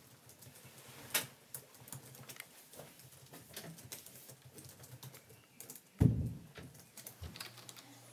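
Soft, scattered typing on a laptop keyboard, with a single low thump about six seconds in.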